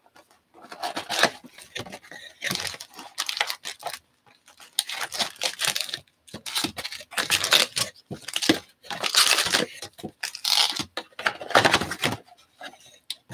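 Foil wrappers of 2020 Topps Tribute baseball card packs crinkling and tearing as the packs are pulled from the box, handled and ripped open, in a series of short rustling bursts.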